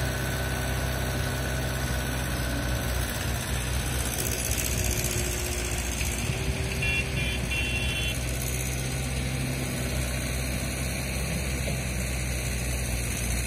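Mahindra 575 DI tractor's diesel engine running steadily at low revs. A few short high beeps come about seven seconds in.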